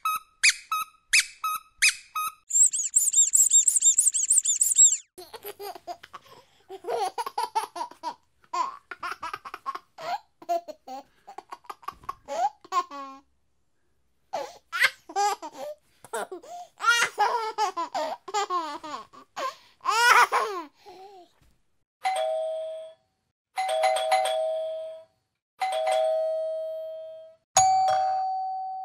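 A run of sound effects for dogs: a few quick squeaks of a squeaky toy, a high jingling, then a baby laughing in bursts for most of the middle, and finally a two-tone doorbell ding-dong rung four times, the last chime ringing on.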